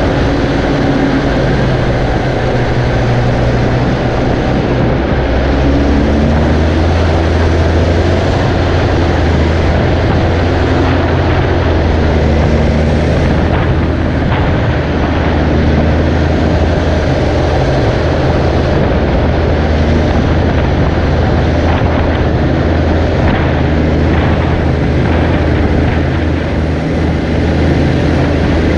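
Tractor's diesel engine running steadily under load, a deep continuous drone whose pitch shifts slightly now and then.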